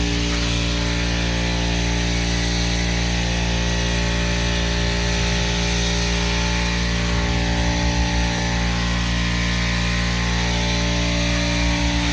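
An electric motor runs steadily with a strong hum and a hiss of air, typical of the air supply for spray painting. It cuts off suddenly just after the end.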